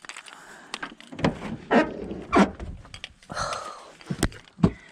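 A string of knocks and clunks from equipment being handled and set down at a vehicle, with the sharpest knocks near the end.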